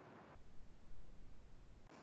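Near silence: faint room tone with a low hum, heard over an online call.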